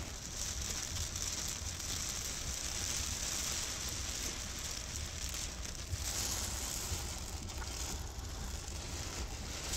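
Heavy rain falling in a steady hiss, with a low rumble underneath.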